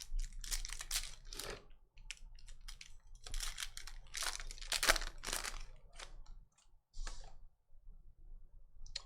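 Trading-card packs and cards being handled: irregular crinkling and rustling of pack wrappers and cards, with a short pause a little past the middle.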